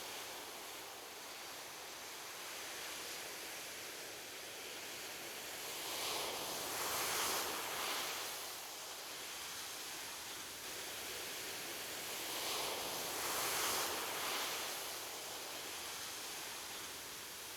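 Ocean surf washing onto a beach: a steady hiss with two waves swelling and breaking, one around six seconds in and another around twelve seconds in.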